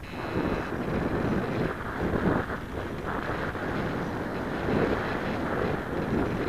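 Wind rushing over the microphone of an onboard camera on a radio-controlled model airplane in flight: a steady rushing noise that swells and dips as the plane banks.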